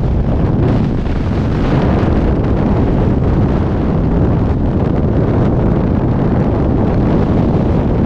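Steady rush of freefall wind buffeting the microphones of a GoPro Max 360 camera during a skydive, heaviest in the low end.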